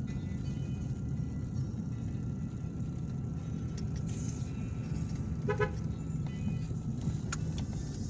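Steady low rumble of a moving vehicle on the road, with a short double toot of a car horn about five and a half seconds in.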